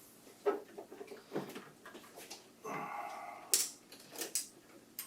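Plastic clicks and knocks from an Epson WF-7720 inkjet printer's housing as it is handled and pivoted, with a short scraping creak a little before the middle and a sharp snap just after it.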